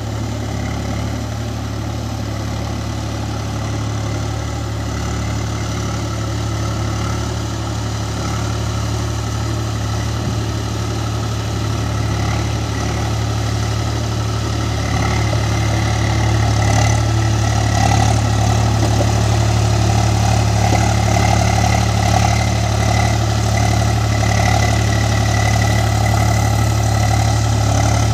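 Swaraj tractor's diesel engine running steadily while it pulls a rotavator through a flooded paddy field, puddling. It grows gradually louder, more so from about halfway through, as the tractor comes nearer.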